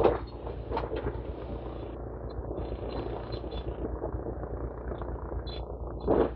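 Demolition excavator engine running steadily, with loud crunching knocks of concrete and rubble being broken, one at the start and the loudest near the end.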